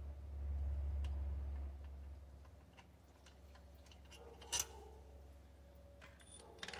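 Hand ratchet clicking in short spells as the last water pump bolt is worked loose, with a sharp metallic clink about four and a half seconds in and a few more clicks near the end. A low rumble runs under the first couple of seconds.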